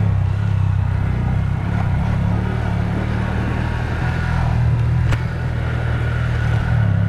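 Motorcycle engine running steadily at low speed while riding over a dirt track, heard from on the bike. A single short click about five seconds in.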